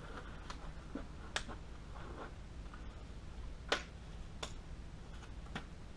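Disposable gloves being pulled on and worked over the hands: a scattering of sharp light snaps and clicks, about six in all, the loudest a little under four seconds in.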